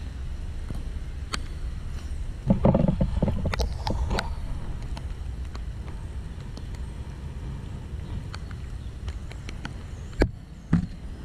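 Rain on the camera and its microphone: a steady low rumble with scattered sharp taps. A louder rumbling stretch comes about two and a half to four seconds in, and there are two sharp knocks near the end.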